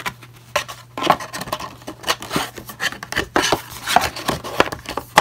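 Paper inserts and cardboard packaging being handled: irregular rustling, tapping and scraping, with a steady low hum underneath.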